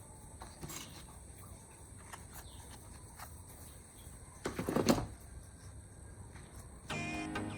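Low background noise with a few light clicks and one short, louder rustling noise a little past halfway. Background music comes back in near the end.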